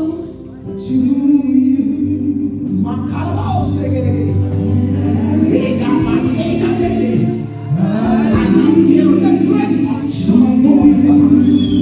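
Gospel worship singing over held accompanying chords, amplified through the church PA, with a woman singing into a handheld microphone.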